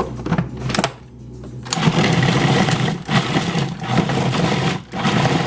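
Electric food processor running, its blade chopping almonds, dates and cocoa into a crumbly mix. A few clicks come first, then the motor starts under two seconds in, dipping briefly a few times.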